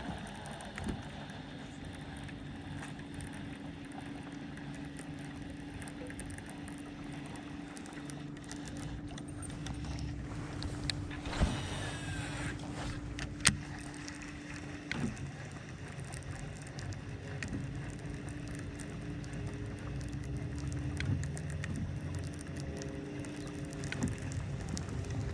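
Small boat motor humming steadily, a held tone over a low rumble, which stops near the end. Two sharp knocks come about halfway through.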